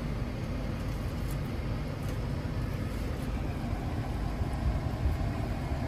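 Steady low rumble of a car engine idling.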